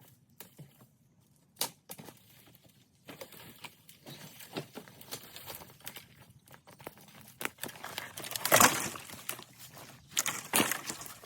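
Dry sticks and brush crackling and snapping as they are handled, with scattered sharp cracks and two louder crunching crashes late on.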